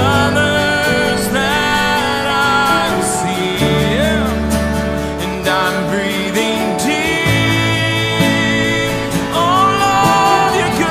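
Live worship song: a man singing over acoustic guitar, with low held notes underneath that change every few seconds.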